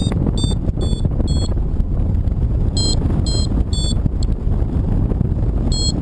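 Strong wind buffeting the microphone in flight, with a paragliding variometer beeping in short runs of about two beeps a second, the sign that the glider is climbing. One run of four beeps, a pause of about a second and a half, then three more beeps, then another pause.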